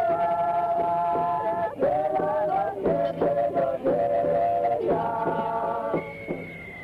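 Film score music of long held notes that step to a new pitch every second or so. A single thin high note comes in near the end as the music gets quieter.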